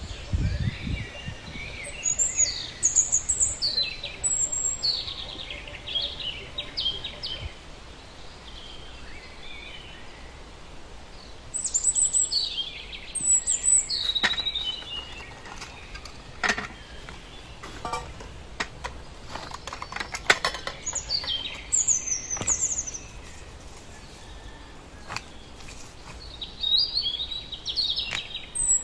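Wild birds calling and singing in several bursts of quick, high, falling chirps, over a steady outdoor background noise, with a few faint clicks in the middle.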